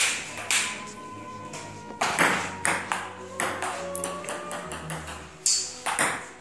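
Table-tennis rally: a ping-pong ball clicking sharply off the bats and the table many times in quick, uneven succession, over background music.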